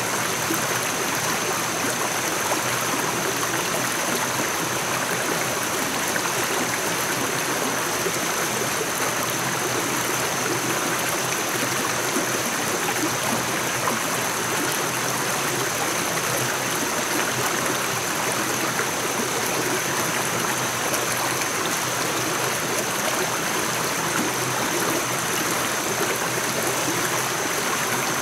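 Shallow rocky forest stream running over stones in small cascades: a steady rush of water, with a thin, steady high-pitched whine above it.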